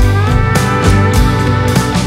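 Background music with a steady beat and sustained melody lines.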